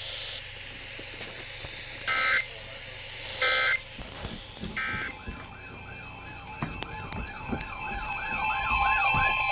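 Emergency Alert System data tones: three short bursts of digital squawk about a second apart, the end-of-message code closing one alert. Then a siren-like up-and-down warbling tone over a steady tone, growing louder toward the end.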